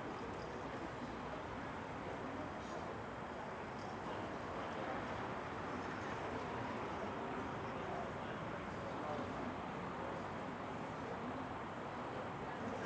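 Night tram-stop ambience: crickets chirring in a steady high band over a low, even hum of distant city noise, with a few faint ticks.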